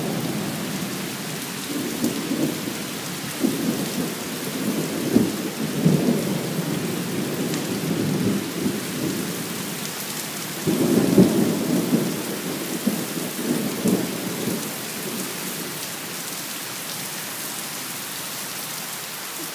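Heavy rain pouring steadily, with long rolling thunder that swells twice, about five and eleven seconds in, and fades away near the end.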